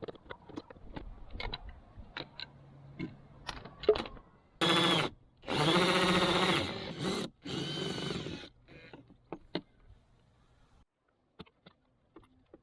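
Power drill running in three short bursts, the motor's pitch dipping under load, after a few seconds of clicks and knocks of tools being handled.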